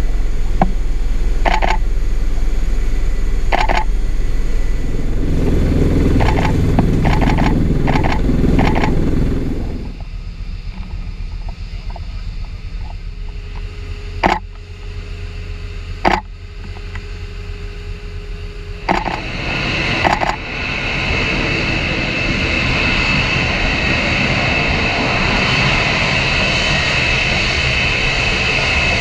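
Steady low rumble of an aircraft in flight with sharp clicks. About ten seconds in it drops to quieter flight-deck noise with a faint steady hum. From about twenty seconds in comes the steady jet roar of an F-35B's single F135 engine as the jet hovers over the deck.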